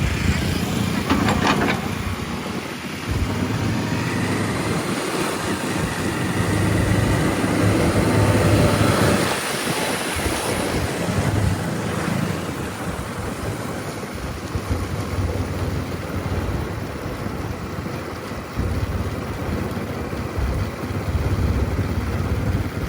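JCB 3DX backhoe loader's diesel engine working under hydraulic load while digging. Its note rises and falls with the work and is loudest about eight seconds in.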